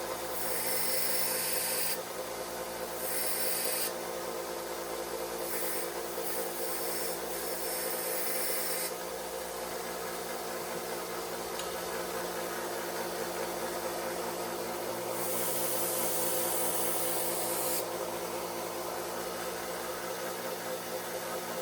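Pocket knife blade being sharpened to a new edge: several passes of rasping, scraping noise, each a second or two long, over a steady hum.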